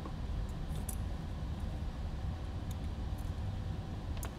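Steady low background rumble, with a few faint light clicks from hands working a small screw and precision screwdriver into a small drone's plastic prop guard.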